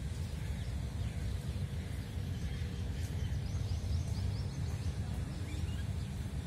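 Open-air ambience: a steady low rumble with a few faint, quick bird chirps about halfway through.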